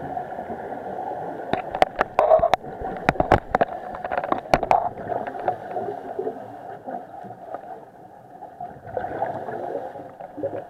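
Muffled underwater sound inside an action camera's waterproof housing: a scuba diver's regulator exhaust bubbling. A run of about a dozen sharp clicks and knocks comes in the first half, from about a second and a half in.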